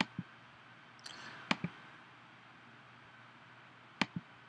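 Computer mouse clicking in quick double-clicks while a document is being edited: three pairs of sharp clicks, one near the start, one about a second and a half in, and one near the end.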